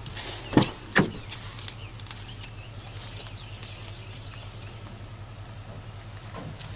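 Rear door of a 2007 Ford F-150 pickup being opened by its outside handle: two loud clunks about half a second apart, a little under a second in, as the latch releases and the door swings open.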